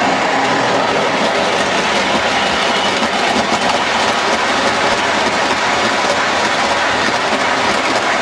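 O-gauge Lionel model train running past on three-rail track: diesel locomotive motors and a long string of covered hopper cars making a steady rolling noise with fine rapid clicking of wheels over the track.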